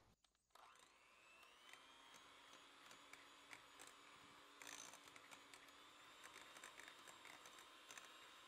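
Electric hand mixer starting up about half a second in, its motor whine rising, then holding steady at medium speed. The beaters tick and scrape against the glass bowl as they beat soft butter.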